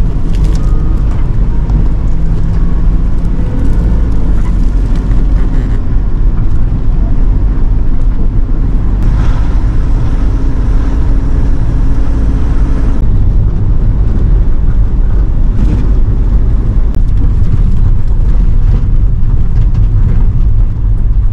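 Small bus driving along, heard from inside the cabin: a steady, loud low rumble of engine and road noise.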